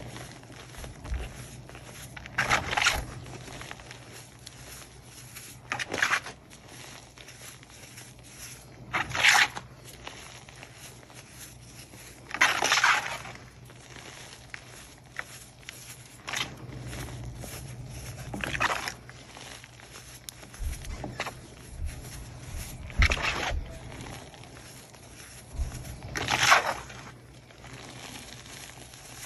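Hands squeezing and crumbling lumps of fresh Pro Source gym chalk coated in iron oxide, giving a soft crunch about every three seconds.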